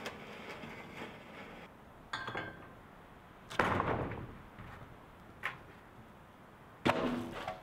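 A long wooden board knocking against a steel post, a few separate sharp knocks with the loudest about halfway through. Near the end comes a final clatter with a brief ring as the board is let fall.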